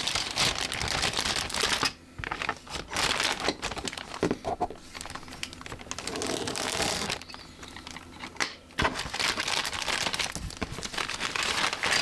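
Crinkling plastic bags rustling as the parts trees of a plastic model car kit are handled and unwrapped, in uneven spells with brief lulls.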